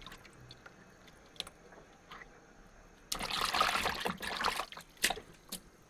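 Light clicks and taps, then about three seconds in a brief wet, liquid sound lasting about a second and a half, followed by two sharp clicks.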